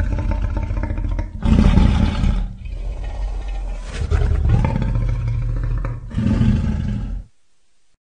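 Custom creature sound effect for the Scorpius rex, a fictional hybrid dinosaur: a low continuous growl broken by three louder roars, about a second and a half in, four seconds in and six seconds in, then cut off suddenly near the end.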